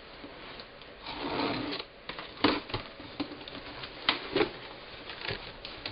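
Cardboard boxes and packaging being handled and opened: a rustling slide about a second in, then several sharp knocks and taps as parts are set down.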